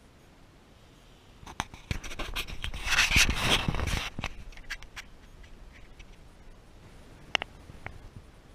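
Scraping and rustling right on the camera's microphone with scattered sharp clicks, loudest in a burst about two to four seconds in: handling noise as the camera is moved.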